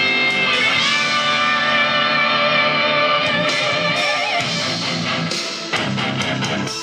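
Guitar-led music playing back through a Philips 425 three-way bass-reflex loudspeaker: held notes at first, then a rhythmic plucked bass line from about halfway in.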